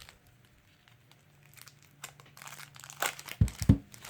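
Cellophane wrapping on a new deck of playing cards crinkling and crackling as it is picked at and peeled, starting about halfway in. Two dull bumps come near the end.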